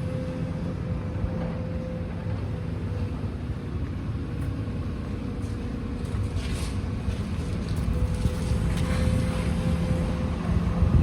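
Steady low engine rumble with a constant hum, with a couple of brief higher-pitched scraping noises over it about six and nine seconds in.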